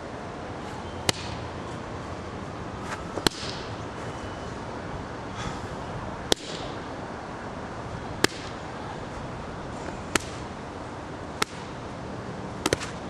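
Hand strikes smacking a leather focus mitt: single sharp slaps about every two seconds, then three in quick succession near the end.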